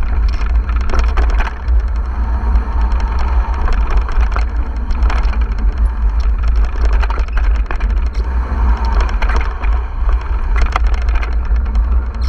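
Mountain bike riding down a rough dirt trail: a steady wind rumble on the microphone, with frequent rattles and knocks from the bike over bumps.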